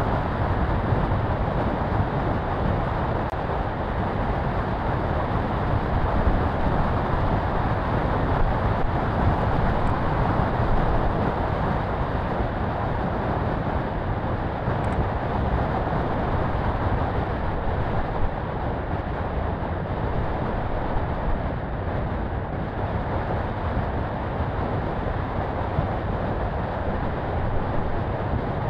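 Daihatsu Feroza 4x4 driving along a gravel road: a steady rumble of engine, tyres on gravel and air rushing past the vehicle, with no letting up or sudden events.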